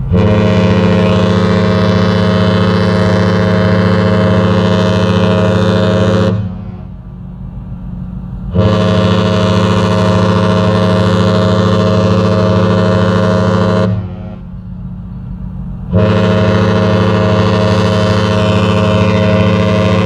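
The ship horn (typhon) of the cruise ship Spirit of Adventure sounds three long blasts of about six seconds each. Each blast is a low, steady, pitched tone. The third blast is still sounding at the end, and a low rumble fills the short gaps between blasts.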